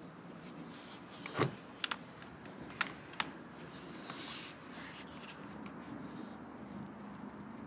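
Low steady background rumble with a knock about a second and a half in, followed by a few sharp clicks and a brief hiss a little later.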